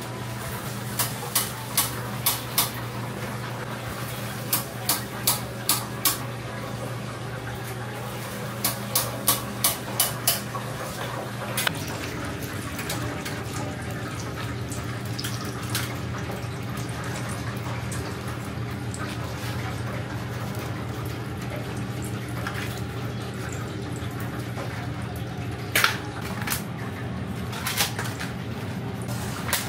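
Deep-fryer oil sizzling over a steady kitchen hum, with three quick runs of sharp metal clicks from cooking tongs in the first ten seconds. About twelve seconds in the hum changes, and a few lighter tong clicks follow as fried chicken is set into bento trays.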